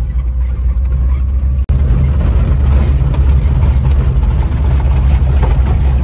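Volkswagen Kombi van's engine running steadily in a low gear over a dirt road, a deep hum with road and body noise heard inside the cab. The sound drops out for an instant a little under two seconds in.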